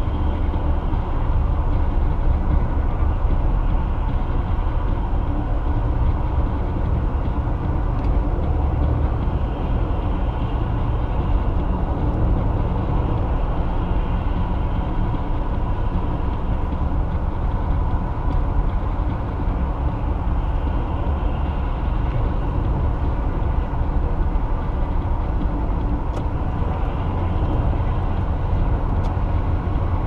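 Car driving at highway speed, heard from inside the cabin: a steady low rumble of tyre and engine noise.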